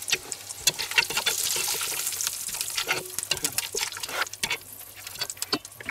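Hot fat sizzling and crackling in a cast-iron Dutch oven as seared pork and bacon pieces are lifted out, with a utensil scraping and clicking against the pot.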